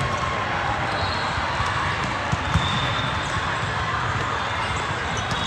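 Game sounds in a gym: a ball thudding repeatedly on a hard floor, a couple of short high shoe squeaks, and a steady crowd murmur.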